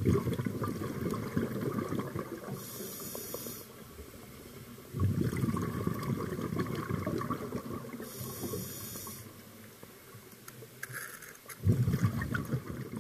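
Scuba diver breathing through a regulator underwater: three long bubbling rumbles of exhaled air venting from the regulator, with a short hiss of the demand valve on the inhale between them, twice.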